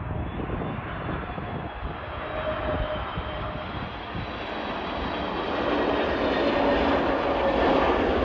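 Airbus A320 airliner's jet engines on final approach: a steady rushing noise with a faint whine, growing louder in the second half as the aircraft comes closer.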